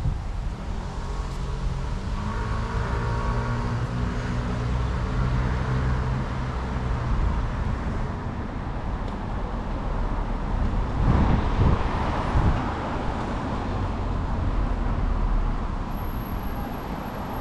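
Road traffic. A vehicle engine hums steadily for the first several seconds, and another vehicle goes by about eleven seconds in.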